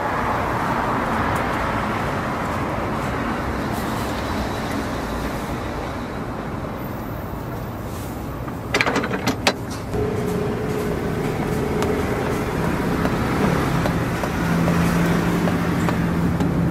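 Steady street noise with passing traffic around a food stall. About nine seconds in comes a quick run of sharp metallic clanks as the metal baking molds are handled.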